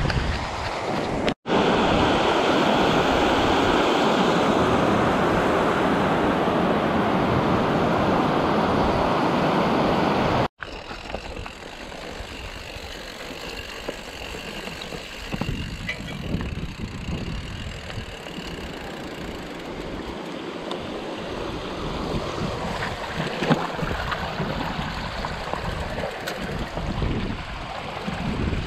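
Mountain bike ride on a rough trail: a loud, even rushing noise for the first ten seconds, then quieter rumble of tyres on a stony path and wind on the microphone, with occasional small knocks.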